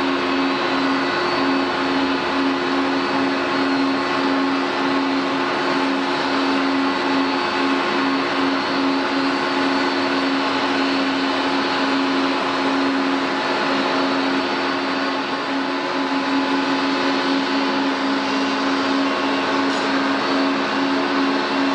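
Airliner turbine noise running steadily at low power: a constant rush with a steady hum and several held whining tones.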